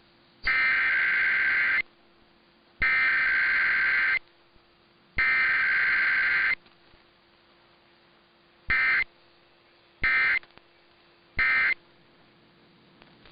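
Emergency Alert System SAME data bursts, the two-tone digital modem signal of a weekly test: three long header bursts of about a second and a half each, then three short end-of-message bursts in the second half. A faint steady hum sits underneath.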